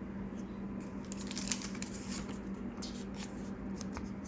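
Light crinkling and rustling of Pokémon trading cards and their plastic or foil packaging being handled, in a run of small irregular crackles, over a low steady hum.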